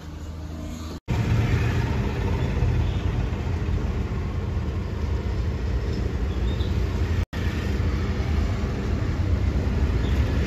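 A Hyundai Creta driving on the road, with a steady low rumble of road and engine noise. The sound cuts out abruptly for a moment about a second in and again about seven seconds in.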